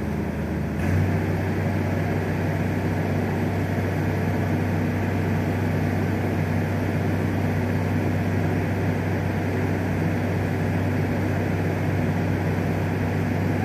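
Engine of the machine holding the concrete window on its orange boom, running as a steady low drone. Its note steps up slightly about a second in and then holds.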